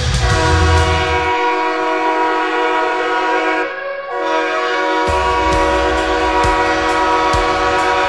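Wichita Thunder's arena goal horn: a long, steady air-horn blast, a short break about halfway, then a second long blast. Music with a heavy low beat plays beneath, its bass dropping out for a few seconds in the middle.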